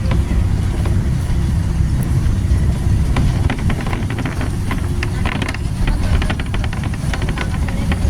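A moving vehicle: a steady low rumble, with rapid rattling clicks joining in from about three seconds in.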